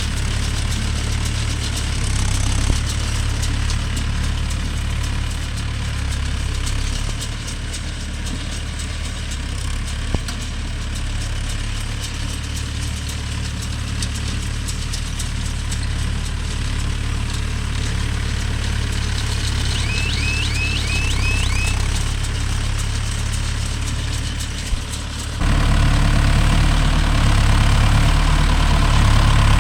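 Mahindra Yuvo Tech Plus 585 tractor engine running steadily; about 25 seconds in it suddenly gets louder. A quick run of high chirps sounds briefly over it near the two-thirds mark.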